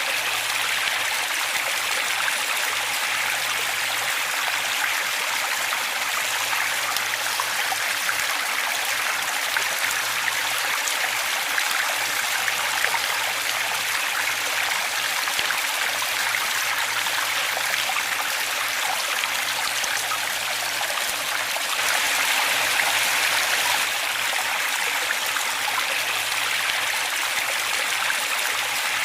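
Waterfall: water falling and running in a steady, even rush, swelling slightly about three quarters of the way through.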